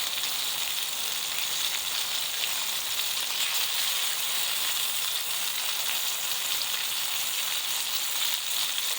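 Blackfin tuna medallions sizzling steadily as they sear in a hot pan of bacon grease.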